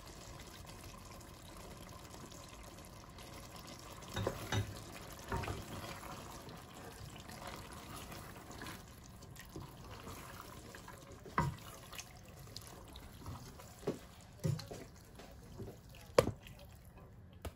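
A wooden spoon mixes boiled chana dal into cooked pumpkin in a stainless steel pot. There is faint, steady wet stirring, with a few scattered knocks of the spoon against the pot.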